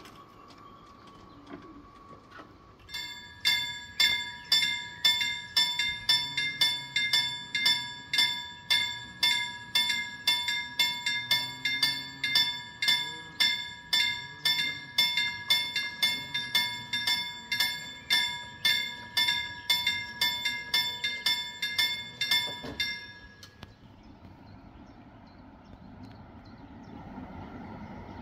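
Level-crossing warning bell striking in a steady run, a little under two strikes a second, for about twenty seconds, then stopping abruptly. Near the end the faint rumble of an approaching train grows.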